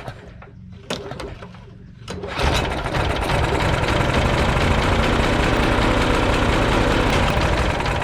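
Briggs & Stratton Quantum 4 hp single-cylinder lawn mower engine catching on a pull-start about two seconds in and running steadily, then shut off near the end and dying away; it starts with the choke on after a carburetor cleaning, choke-linkage fix and new fuel line.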